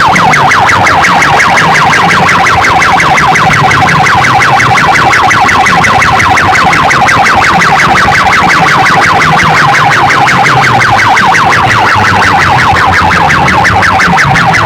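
A DJ sound system blasting a very loud electronic siren-like tone that warbles rapidly, many pulses a second, over a repeating bass pattern.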